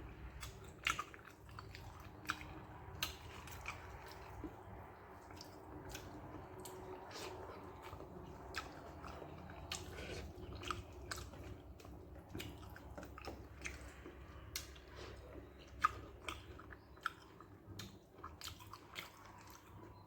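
A person chewing rice with a soft brinjal and okra curry, with frequent irregular wet mouth clicks and smacks.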